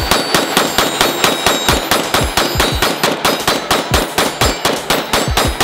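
Zastava ZPAP85 AK pistol in 5.56 fired in a fast, even string of semi-automatic shots, about five or six a second, with the hits ringing off a steel silhouette target.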